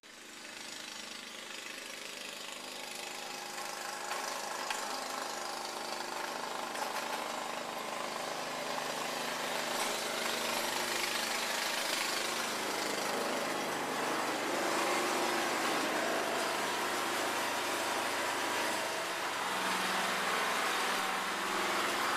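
Walk-behind lawn mower running steadily, growing louder over the first few seconds.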